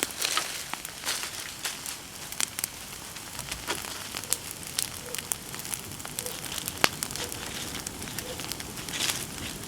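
Bonfire of cut persimmon wood burning, crackling with sharp, irregular pops over a steady hiss.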